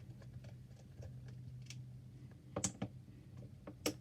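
Plastic clicks from a Wacky Tracks link-chain fidget being handled and its links turned: light scattered ticks, with two sharper clicks about two and a half seconds in and near the end.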